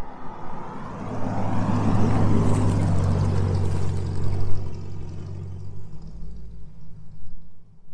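1978 Ford Thunderbird's 400 cubic-inch big-block V8 driving past: the engine and exhaust grow louder as it approaches, peak with tyre hiss as it passes about two to three seconds in, then fade as it pulls away.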